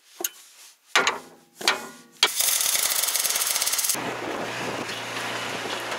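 Four hammer blows on metal on the underside of an Iveco Daily 4x4 van, two of them ringing. About two seconds in, a loud fast rattling starts, and about four seconds in it gives way to the van's engine and tyres as it drives along a sandy track.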